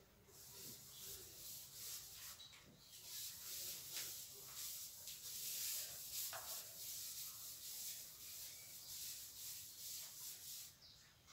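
A whiteboard being wiped clean by hand: faint, repeated rubbing strokes of an eraser across the board's surface.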